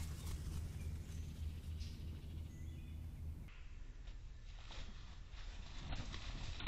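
Woodland ambience with a steady low hum that stops abruptly about three and a half seconds in, a few faint bird chirps, and several brief rustles near the end as a turkey vulture flaps its wings.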